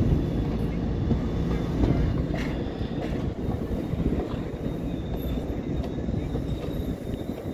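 An exo commuter train's Bombardier bilevel coaches roll past close by with a steady low rumble of wheels on rail, easing off gradually as the last car goes by.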